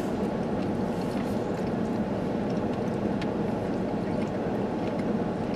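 Steady hum of a car's running engine or climate blower, heard inside the cabin, with a few faint small ticks over it.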